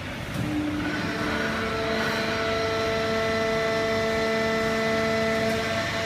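Fully automatic horizontal hydraulic baler running: a steady machine hum, with a whine of several held tones that sets in about a second in and holds steady.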